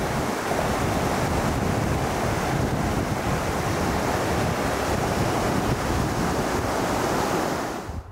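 Fast mountain river rushing over rocks and rapids, a steady loud rush of water that cuts off near the end.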